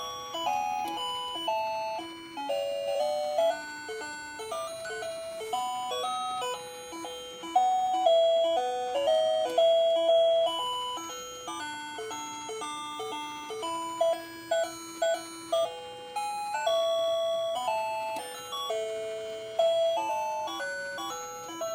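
Doraemon alarm clock playing its alarm melody: a simple electronic tune of single, beep-like notes.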